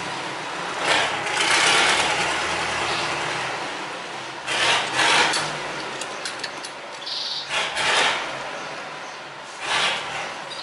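Metal parts and a socket wrench being handled as a cleaned throttle body is bolted back onto the engine: several short scraping rubs, with a few light clicks in the middle, over a steady low hum.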